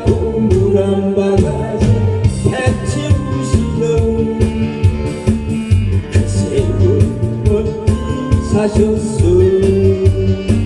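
Korean trot music with a steady beat and bass under a held melody line.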